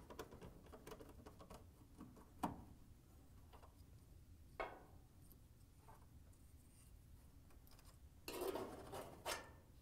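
Faint handling noises: a few light clicks and a brief rustle near the end, as the dryer's thermal fuse and thermistor, with their wire leads, are taken off the blower housing after their screws come out.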